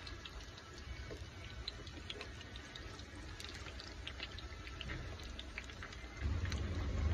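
Hot oil sizzling and crackling around breaded patties shallow-frying in a pan. A low rumble comes in near the end.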